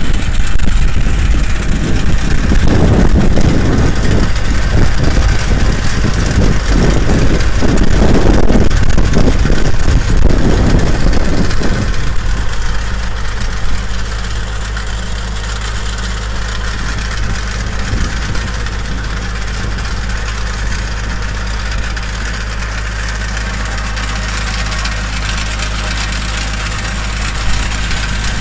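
Tractor engine running steadily under load while pulling an onion digger through the soil. A louder, uneven rumble rides over it for the first twelve seconds, then drops away, leaving a steady hum.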